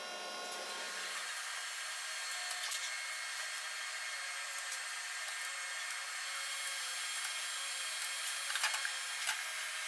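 A steady hiss-like noise with faint thin tones, with a few light metal clicks near the end as a hydraulic piston pump's steel cylinder barrel is worked down onto its piston assembly.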